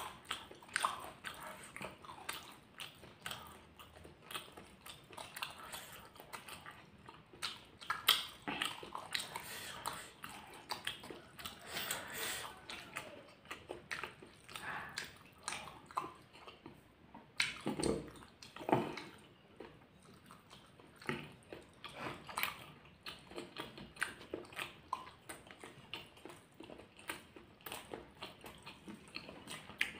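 Close-up eating sounds of fried egg in balado chili sambal with rice, eaten by hand: irregular wet chewing clicks and smacks throughout, with a few louder ones scattered through.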